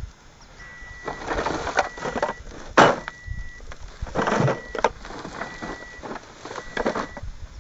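Rustling of a plastic sack and knocking of gear as things are rummaged through and lifted out of a car trunk, with one sharp knock nearly three seconds in. A steady high beep sounds on and off about once a second behind it.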